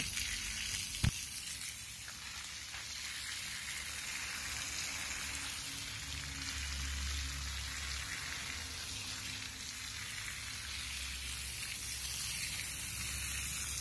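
Steady hiss of water spraying onto garden plants and foliage, with a single short click about a second in.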